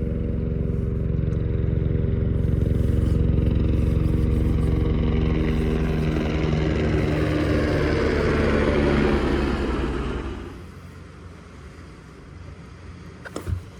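Boat motor running steadily, then dropping away sharply about ten seconds in, followed by a brief click near the end.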